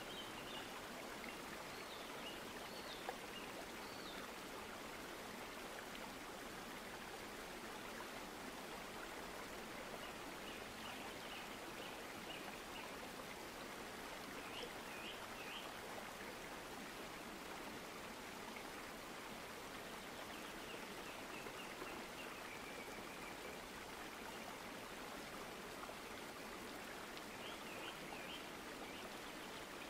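Steady, even rushing noise like a flowing stream, with faint high chirps now and then.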